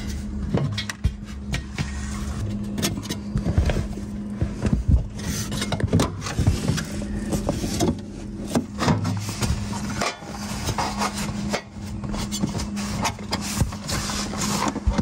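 Hands working convertible soft-top fabric into a metal rain rail close to the microphone: irregular rubbing and scraping with scattered small clicks and knocks, over a steady low hum.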